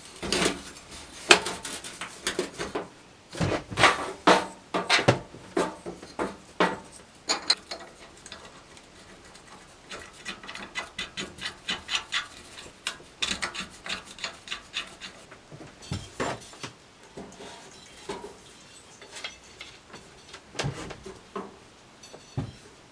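Hand work on parts: a series of sharp knocks and clatters, then a run of quick short rubbing or scraping strokes, and a few separate knocks near the end.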